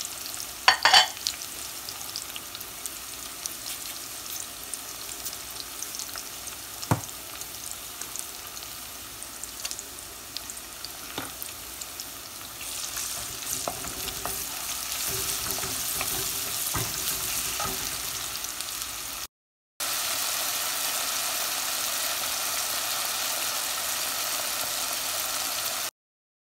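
Sliced onions and whole spices (bay leaves, cinnamon stick) sizzling in hot oil in a stainless steel pot, stirred with a wooden spoon that knocks against the pot now and then. A brief crackle comes about a second in, and the sizzle grows louder about halfway through.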